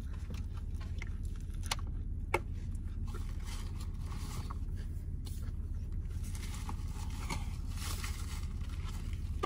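Someone eating a McDonald's Big Mac: chewing with small clicks and crackles of mouth and paper wrapper, the sharpest about two seconds in, over a steady low hum.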